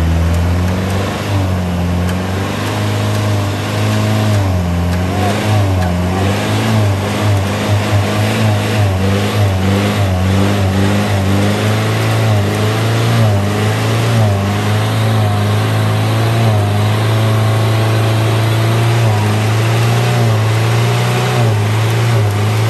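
Jeep CJ7's engine running under load while crawling off-road through thick brush, a steady low drone with the revs rising and falling unevenly.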